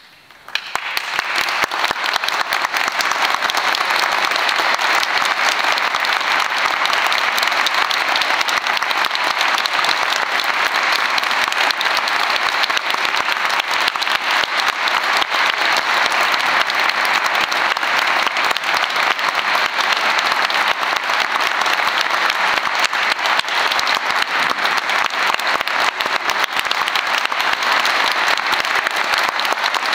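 Concert audience breaking into applause out of silence about half a second in, then clapping steadily and densely.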